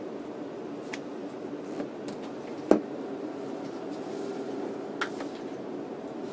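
A tablet in a slim leather case being handled on a desk: a few light clicks and taps, and one sharp knock about two and a half seconds in as the case meets the desk, over a steady low background hum.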